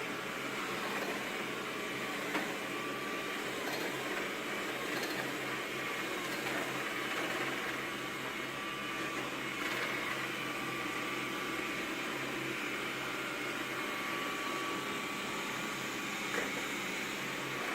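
Xiaomi Mi Robot Vacuum Cleaner running steadily, its suction motor and brushes making a constant hum with a faint whine, and two light knocks, about two seconds in and near the end.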